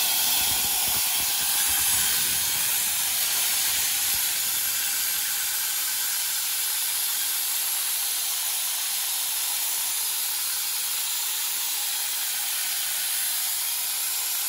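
Compressed air hissing steadily through an aircraft float-type carburetor, blowing coloured water from its bowl out as a fine spray, which simulates the carburetor's fuel metering and atomizing.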